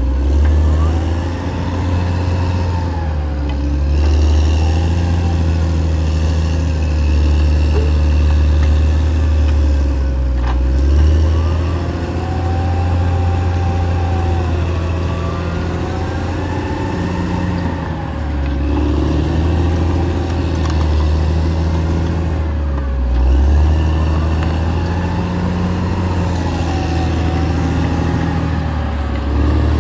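Caterpillar D6R XL bulldozer's diesel engine running steadily under load with a deep rumble, its pitch shifting as it works. A whine rises and falls every few seconds over the engine.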